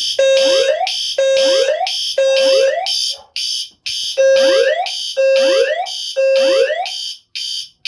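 Fire alarm evacuation tone from a voice evacuation fire alarm system, sounding in a temporal-three pattern: three pulses, a short pause, then three more. Each pulse is a steady low tone that ends in a rising sweep.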